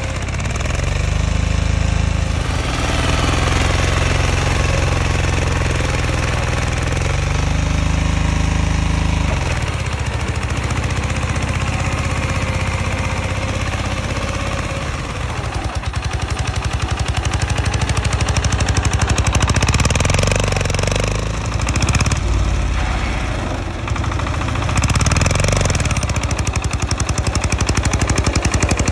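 Homemade mini tractor's engine chugging under load through an open upright exhaust as it pulls a trolley heavy with sacks, a fast, even run of knocks from the firing strokes.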